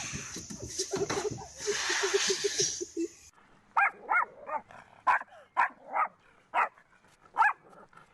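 A dog barking in a series of short, sharp yips, about eight of them spaced irregularly roughly half a second apart, after an abrupt change about three seconds in. Before that comes a noisy stretch with a rapid low pulsing.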